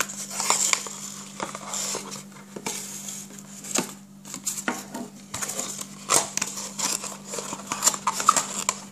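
A small box and its packaging being opened and handled by hand: a run of irregular clicks, taps and rustles, over a steady low hum.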